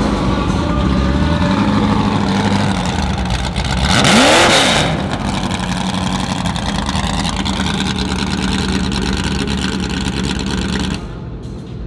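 Car engine idling, with one quick rev that rises and falls about four seconds in.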